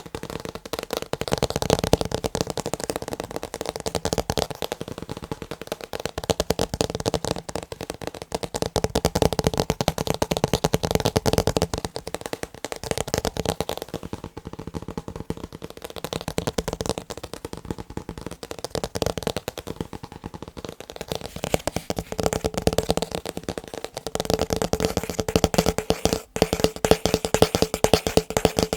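Rapid, dense tapping on picture frames, the taps running into one another over a steady ringing note, with a brief break near the end.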